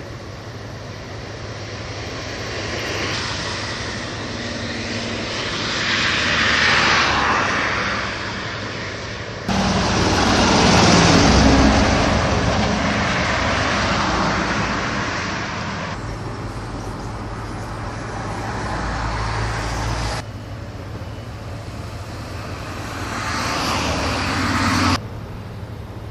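Vehicle noise swelling and fading as traffic passes, several times over, with abrupt cuts between short clips.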